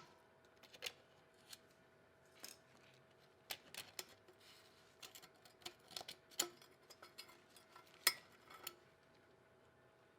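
Faint, irregular metal clicks and scrapes of picks prying a large snap ring out of a Dana 44 front locking hub.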